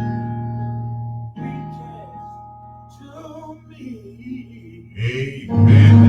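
Live worship music: sustained keyboard chords ringing and slowly fading, a voice singing softly through the middle, and the music swelling back in loudly with singing near the end.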